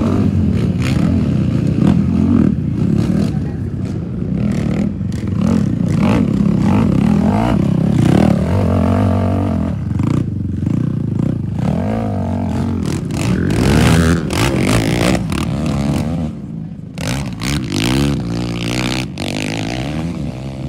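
ATV (quad) engines revving up and down hard, the pitch rising and falling again and again as riders work them over a log obstacle, mixed with clattering knocks.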